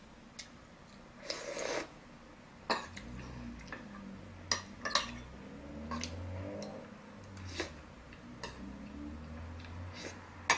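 Eating soup with a metal spoon: the spoon clicks against the bowl a dozen or so times, with a brief sipping sound about a second and a half in.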